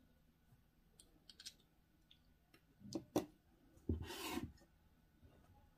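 Quiet handling noise: a few light clicks, a sharper click about three seconds in, then a short scrape about four seconds in as a small oval loudspeaker is moved on the tabletop.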